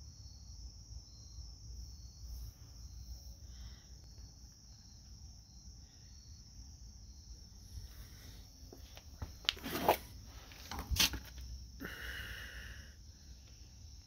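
Steady high trilling of insects, with a low rumble of camera handling underneath. Two loud, sharp knocks come a little past the middle.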